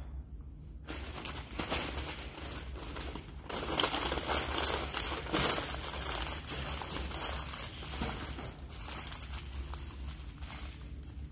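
A sheet of white wrapping being crumpled and handled, a dense crinkling that starts about a second in, is loudest in the middle and tails off near the end.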